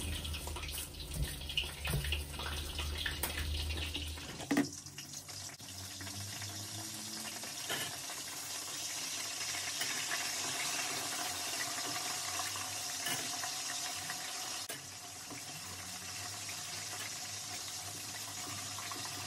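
Masa quesadillas frying in hot oil: a steady sizzle, with a few light metallic clicks from the tongs in the first few seconds.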